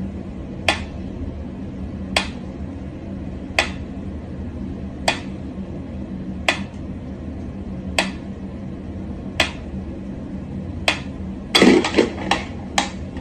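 Mechanical pendulum metronome ticking slowly, one sharp click about every second and a half. Near the end a louder clatter and a couple of quicker, uneven clicks break the beat.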